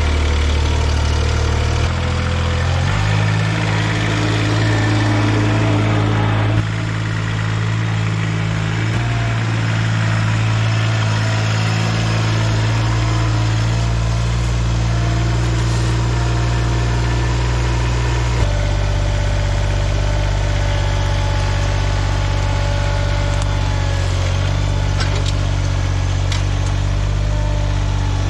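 Ventrac 4500Y articulated tractor's engine running as the tractor is driven along. Its speed changes a few times, and a few faint clicks come near the end.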